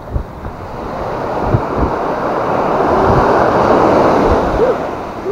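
Small surf breaking and washing up a sandy beach, swelling to its loudest about three to four seconds in and then easing, with wind buffeting the microphone.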